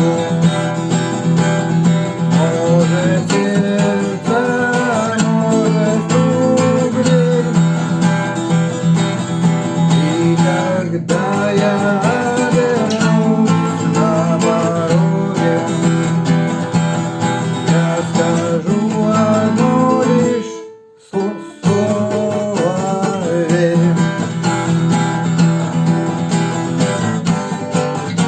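Acoustic guitar strumming chords, with a melody line over them. The music breaks off briefly about 21 seconds in, then carries on.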